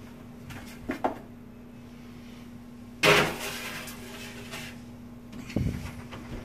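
Oven door and metal baking tray clattering as a tray of Brussels sprouts goes onto the rack under the broiler. The loudest clatter comes about three seconds in, with a duller knock near the end and a steady low hum underneath.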